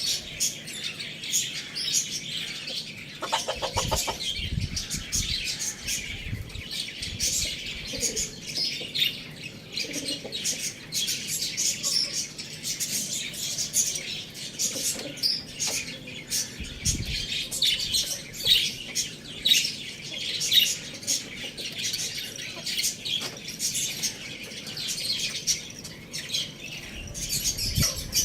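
Many small birds chirping continuously, with dense, overlapping short high-pitched chirps throughout.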